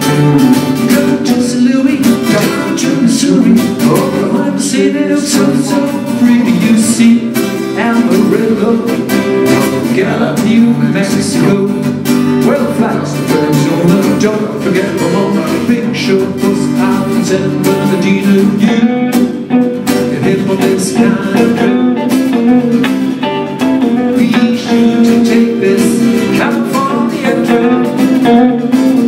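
Instrumental break of a rhythm and blues shuffle: an electric guitar playing lead over a strummed acoustic guitar.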